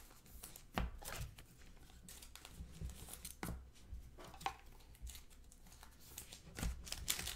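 Trading cards being handled and slid into plastic sleeves: faint plastic rustling with scattered light clicks and taps as cards are set on the stack.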